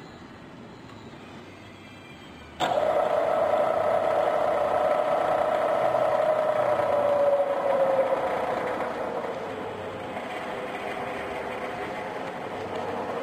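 Bridgeport EZ Trak vertical mill's spindle and variable-speed belt drive running with a steady whine that comes in suddenly about two and a half seconds in. The pitch falls gradually over a few seconds near the middle as the spindle speed handwheel is turned toward slower.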